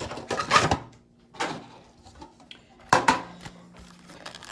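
Pokémon card packs and packaging being handled: several short bursts of rustling and knocking, with a sharp click near the end.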